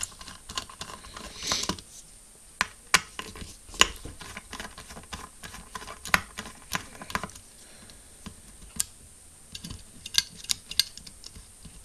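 Irregular small clicks and ticks of a precision screwdriver working screws out of an opened hard disk drive by the head arm, with a few sharper metal taps.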